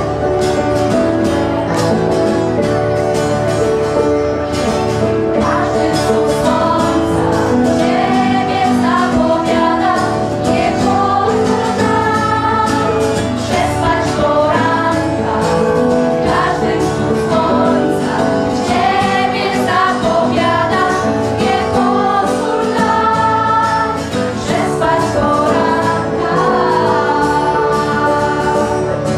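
A group of teenage girls singing a song into microphones over amplified instrumental accompaniment with a steady beat; the voices come in about six seconds in.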